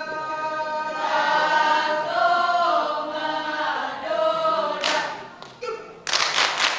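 Rampai Aceh dancers singing together a cappella in unison, with long held notes that bend slowly in pitch. Near the end the singing stops and their hands strike out a single sharp hit and then a quick run of sharp hits.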